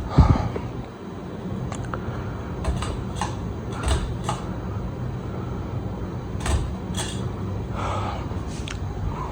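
Ceiling fan motor running with a steady low hum, under a loud knock just after the start and a scatter of sharp clicks and knocks.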